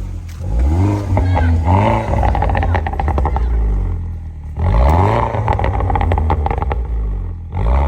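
Mini Cooper S R56's 1.6-litre turbocharged four-cylinder engine revved up and dropped back twice, about four seconds apart, between stretches of idle. It is running with a freshly replaced timing chain and sounds even ('todo parejito').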